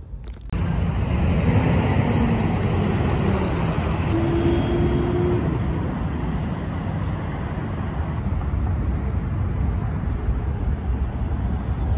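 Steady road traffic noise from cars on a city street, a continuous low rumble that starts suddenly about half a second in.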